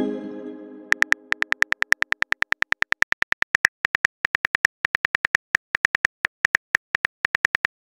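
Texting-app sound effects: a short electronic chime fading out, then a rapid run of virtual-keyboard key clicks, about six a second with a few brief pauses, as a reply is typed.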